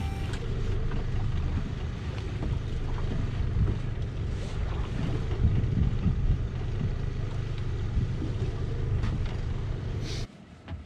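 Steady low rumble of wind buffeting the microphone aboard a small fishing boat at sea, with a few light clicks; it cuts off abruptly near the end.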